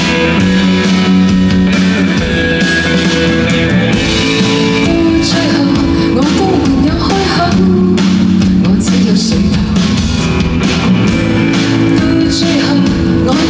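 Live band music, loud and steady: guitars and a drum kit playing a rock-style song.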